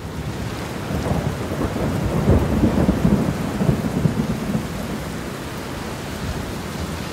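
Thunderstorm: steady rain with a low rumble of thunder that builds about a second in, is loudest a second or two later, then eases back to the rain.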